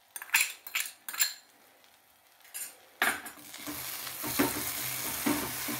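A metal spatula taps and scrapes fried onions out of a ceramic bowl, a few sharp clinks in the first second and a half. About three seconds in, the onions are stirred into the masala in a frying pan: a steady sizzle with the spatula scraping through it.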